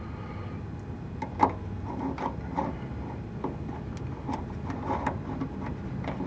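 Metal clinks and knocks as a socket on an extension is worked onto the stud of a steel fuel tank strap. About a dozen short, irregular knocks, the loudest about a second and a half in.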